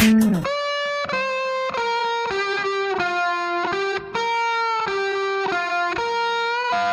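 Music: a lead melody of held notes on a distorted electric guitar, one note after another, with the drums dropping out about half a second in.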